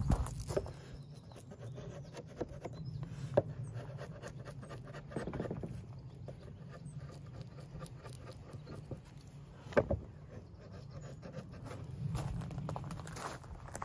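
Wood chisel paring and scraping along the edge of the timber in many short scratchy strokes, with two sharper clicks, one a few seconds in and one near the end.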